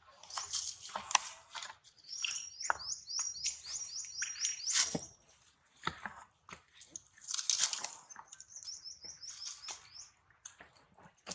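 A bird calling in two runs of quick, evenly spaced high chirps, about four or five a second, each run lasting two to three seconds. Scattered clicks and short rustles are heard around them.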